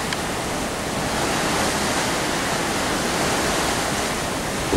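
Steady, even rushing of wind and sea on the open deck of a cruise ship under way.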